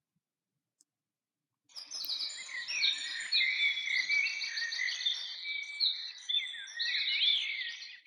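A chorus of garden songbirds, many birds singing at once in overlapping whistles, trills and chirps, starting suddenly a little under two seconds in.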